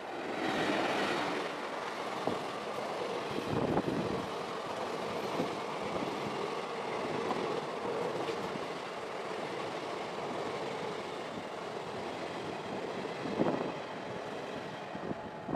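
Passenger train passing close by at speed: a WAP-4 electric locomotive, loudest about half a second in, then its ICF coaches with a steady rumble and scattered clacks of wheels over the rail joints.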